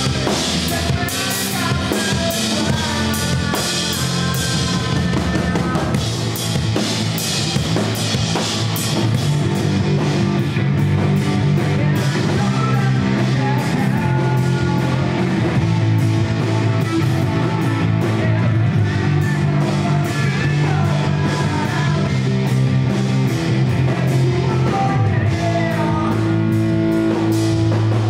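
Live rock band playing steadily through the club PA: a drum kit, electric bass guitar and electric guitar.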